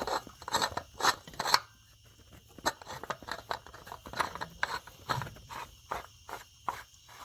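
Irregular clicks and scrapes of hand work as a new oil filter with a new O-ring is fitted back into place, several sharp clicks close together in the first two seconds, then sparser.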